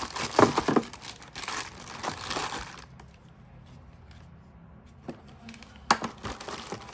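Plastic packaging crinkling and rustling as the power adapter is unwrapped, for about the first three seconds, followed by two sharp clicks near the end.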